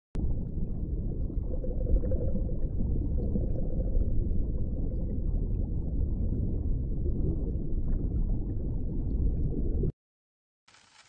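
Underwater ambience in a jellyfish aquarium tank: a steady low rumble and gurgle of moving water. It cuts off suddenly near the end.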